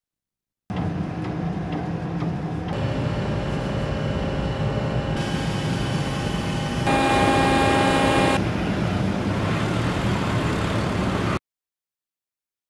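Shipboard machinery running, likely the deck crane lifting a boat: a steady low rumble with whining tones that change abruptly in steps. It starts about a second in and cuts off suddenly near the end.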